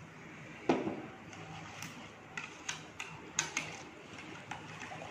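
A metal spoon stirring a yogurt-and-spice marinade in a ceramic bowl, clinking sharply against the rim several times, with a louder knock about a second in.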